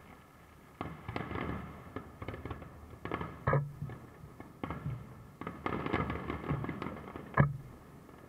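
Aerial firework shells bursting in a series of bangs, with crackling between them. The loudest bangs come about three and a half seconds in and near the end.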